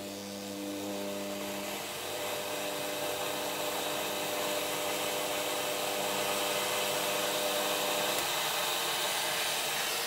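Protect 950 XP fog cannon running flat out: a steady rushing hiss of fog blasting from its nozzle, with a hum underneath that drops away about eight seconds in.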